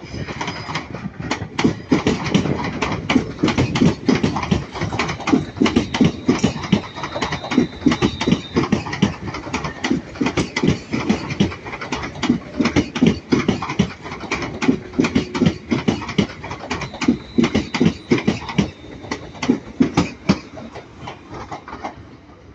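Class 350 Desiro electric multiple unit running past at the platform, its wheels making a fast, dense clatter over the rail joints and pointwork.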